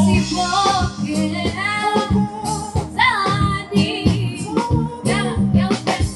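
A woman singing a song over amplified music with bass and a steady drumbeat, during a stage sound check.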